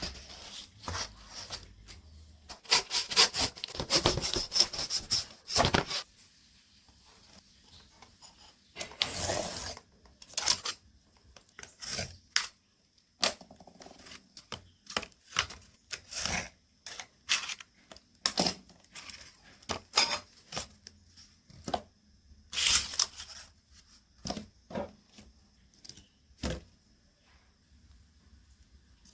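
Cardboard being handled and worked by hand: irregular scraping, rubbing and tapping strokes. A dense run of strokes comes a few seconds in, and shorter runs come later.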